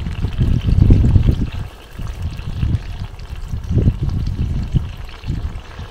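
Oil being ladled out of a wok and poured into a stainless steel pot: uneven trickling pours and scoops, loudest about a second in.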